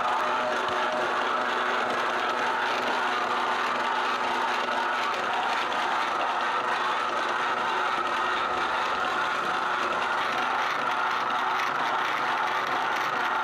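Motorised noodle-sheeting machine running steadily, its gears and steel rollers pressing a sheet of yellow noodle dough, with an unbroken mechanical drone and a few steady tones.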